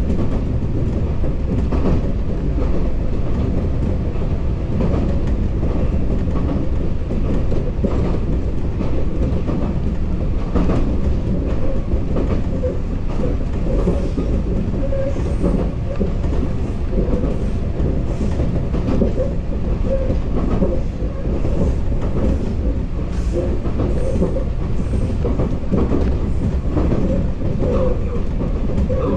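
Two-car Kintetsu electric train running, heard from inside the driver's cab: a steady low rumble with wheels clacking over rail joints. Short ringing notes recur through the second half.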